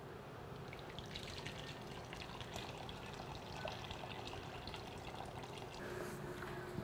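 Marinade pouring from a steel bowl through a mesh strainer onto raw pork ribs in a plastic tub: a faint, steady trickle and splash of liquid.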